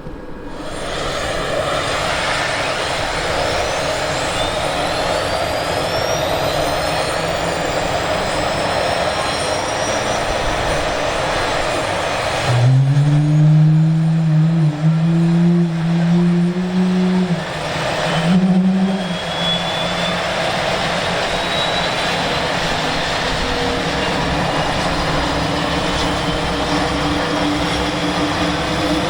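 Airbus A400M's turboprop engines and propellers running loud and steady. A strong low drone swells in for several seconds about halfway through.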